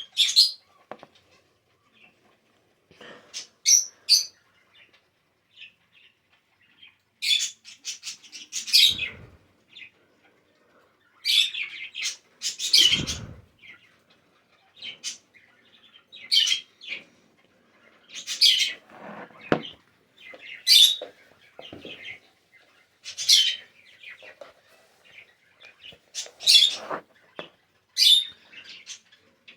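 Bird chirping in short, high-pitched, irregular bursts, with a couple of low thuds about nine and thirteen seconds in.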